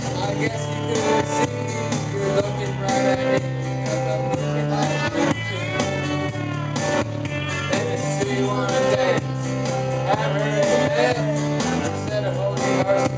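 Karaoke-style amplified performance: a guitar-led country-rock backing track plays through a PA while a singer sings over it into a handheld microphone, the voice coming and going between phrases.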